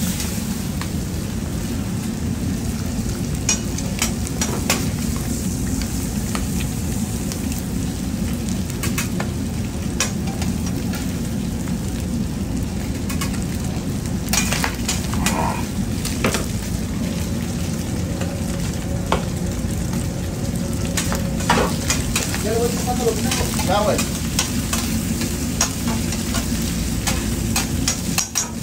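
Meat, nopales and onions sizzling on a flat-top griddle over a steady low rumble, with scattered clicks and scrapes of a metal spatula on the steel plate.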